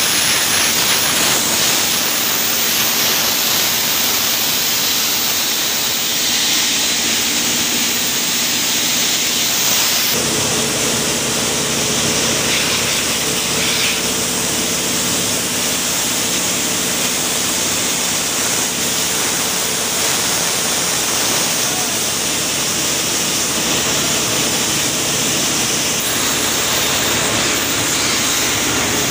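Borewell drilling rig running steadily under load, with a loud rushing hiss over the engine. The engine note changes abruptly about ten seconds in.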